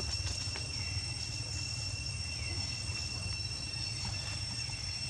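Insects trilling steadily at a few fixed high pitches, over a steady low rumble, with a few faint clicks.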